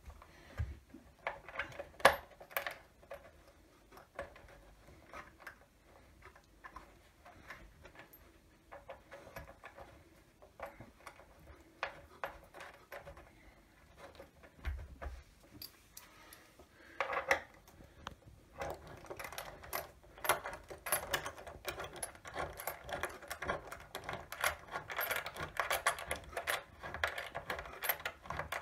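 Small metal clicks and taps of hand-fitting hardware into the wooden frame of an IKEA couch, with one sharp click about two seconds in. About two-thirds of the way through it turns into a fast, continuous clicking as the fastener is turned with a hand tool.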